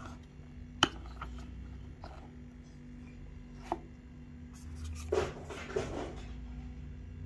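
Handling noises while a camera kit is unboxed: a sharp click about a second in, a lighter click near four seconds, and a brief clatter and rustle around five to six seconds in, over a steady low hum.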